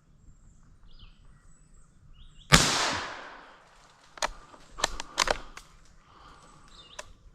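A single gunshot about two and a half seconds in, echoing away over about a second, followed by a string of sharp knocks and thumps: the shot squirrel falling through the branches and hitting the ground.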